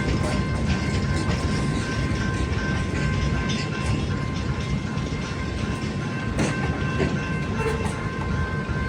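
Cars of a continuous-welded-rail train rolling past: a steady rumble of wheels on the rails with scattered clicks, and two thin, steady high tones ringing throughout.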